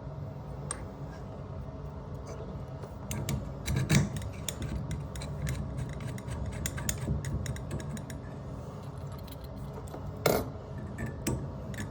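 Small brass plumbing fittings and hand tools clinking and clattering as they are handled, over a steady low hum. Sharper knocks come about four seconds in and again near the end.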